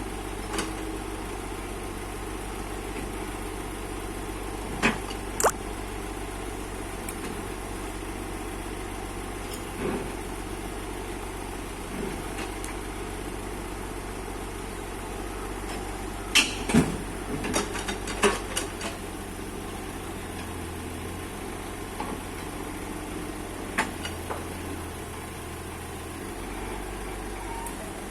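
Bobcat mini excavator's diesel engine running steadily, with a few sharp metallic knocks and clanks, clustered about two-thirds of the way in.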